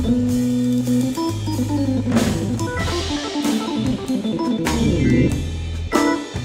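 Live blues from a Viscount Legend organ, a Hammond-style clonewheel, and a Ludwig drum kit. The organ holds bass notes and chords with a flurry of quick notes in the middle, under drum strikes and cymbals.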